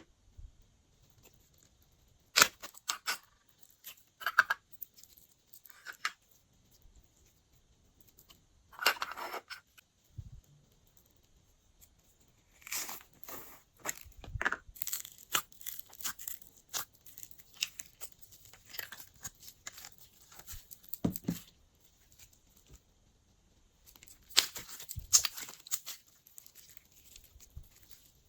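Glossy slime being squished, stretched and folded by hand, giving bursts of sticky clicks and crackles with quiet pauses between them; the longest run of crackling comes in the middle.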